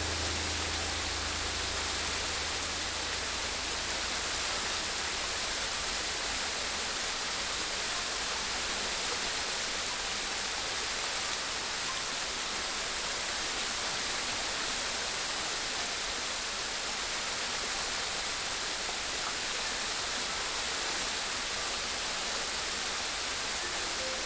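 Steady rushing water, an even hiss with no rise and fall. A low note from background music fades out in the first few seconds.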